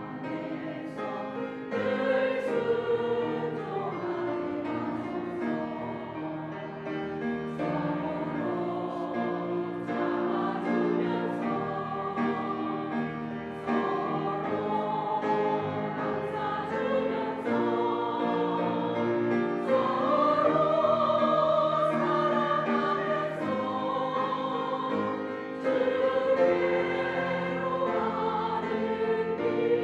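Women's church choir singing a hymn in sustained, legato phrases, several voices together.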